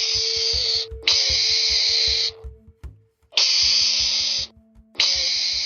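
An animal hissing in harsh bursts about a second long, four times, over background music with a steady beat.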